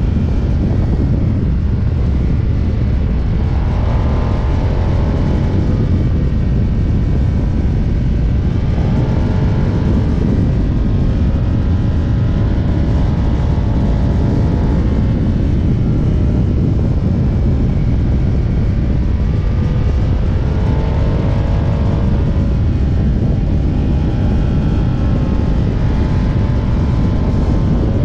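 Ducati Diavel's V-twin engine running at about 100 km/h, mixed with heavy wind rush from riding. The engine note rises and falls a little a few times.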